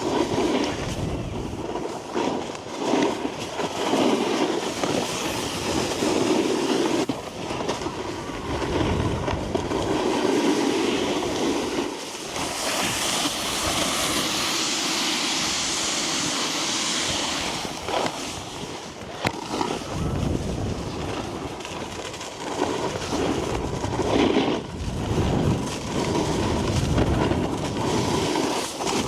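Snowboard sliding and turning on packed snow, the base and edges grinding and chattering, with wind buffeting the microphone. In the middle there is a long, hissing scrape of the edges across the snow.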